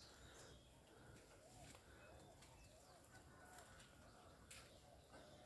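Faint outdoor quiet with a distant bird repeating short rising-and-falling notes about twice a second, starting about one and a half seconds in.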